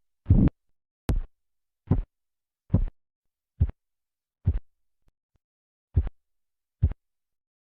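Korotkoff sounds heard through a stethoscope over the brachial artery as a blood-pressure cuff is slowly let down: a regular series of dull thumps, a little more than one a second. The first few are longer and louder, the later ones shorter, and they stop near the end.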